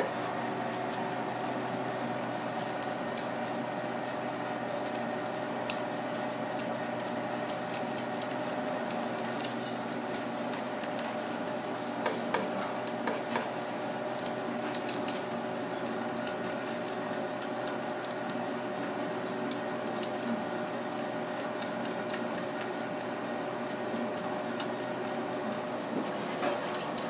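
Faint scattered clicks and scrapes of a thin metal pick working snow crab meat out of the shell, over a steady background hum.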